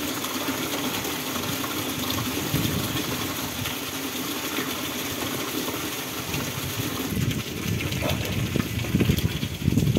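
Steady rain, with rainwater gushing from a roof spout into a plastic water tank. About seven seconds in the pouring gives way to rain falling on and around a roof gutter, and the sound grows louder with a low rumble near the end.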